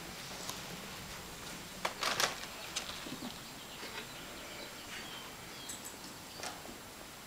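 Kittens playing with a string toy on carpet: a brief scuffle of rustling and clicks about two seconds in, then scattered light taps over a faint steady hiss.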